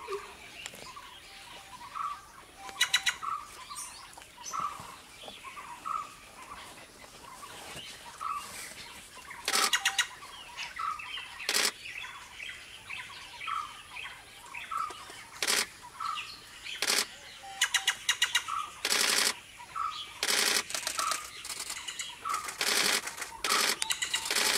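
White-bellied treepies calling during courtship: a dozen or so short, harsh rattling bursts, more frequent in the second half, over a short note repeating about once a second.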